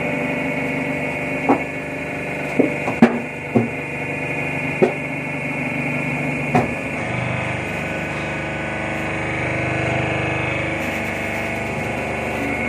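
Hydraulic drum press running: steady hum of its electric motor and pump as the ram strokes down, with six sharp metallic knocks in the first half and a deeper tone joining after about seven seconds.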